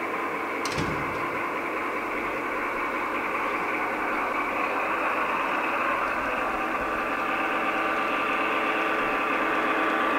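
Sound module in a garden-scale model of the HSB class 199 diesel locomotive 199 892 playing a diesel engine running sound through its small loudspeaker. It is steady and thin, with no bass, and grows slowly louder as the model approaches. A single click comes about a second in.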